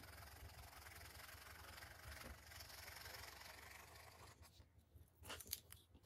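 Faint scratchy rubbing of a Bic Cristal ballpoint pen's tip on paper, shading back and forth, which stops about four seconds in. Near the end come a few sharp clicks from plastic pens being handled.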